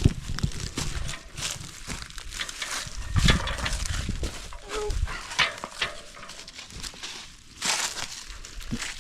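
Footsteps and rustling in grass and leaves with scattered knocks while fence panels are handled, with a louder thump about three seconds in.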